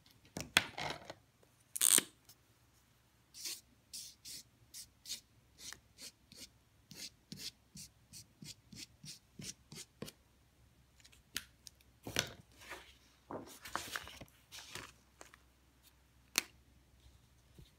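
A crayon scraping across paper in a run of short, quick strokes, with a few louder scratchy strokes later on and a single sharp click near the end.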